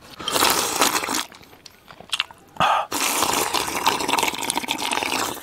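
A man slurping soup from a porcelain bowl: one slurp of about a second, a short one about two and a half seconds in, then a long slurp from about three seconds in.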